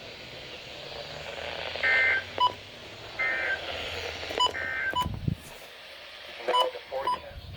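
NOAA weather radio sending the Emergency Alert System end-of-message code: three short bursts of warbling data tones, about a second and a half apart, which close the weekly test broadcast. They are mixed with several sharp clicks and short beeps and a couple of low thumps.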